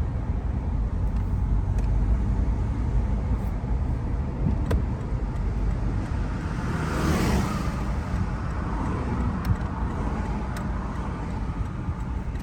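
Toyota Land Cruiser Prado 150 being driven, heard from inside the cabin: a steady low rumble of road and engine noise, with a broad swell of louder noise about seven seconds in. No brake squeal stands out.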